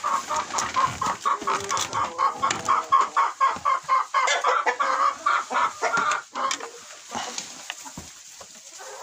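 Domestic chickens clucking in a coop: a fast, loud run of short clucks, about four a second, that drops to quieter clucking after about six seconds.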